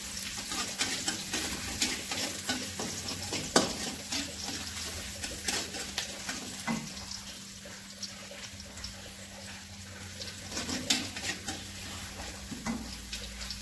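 Sliced garlic sizzling in hot oil in a wok while a spatula stirs and scrapes it, with scattered clicks of the spatula against the pan and a sharper knock about three and a half seconds in. The garlic is being fried until fragrant.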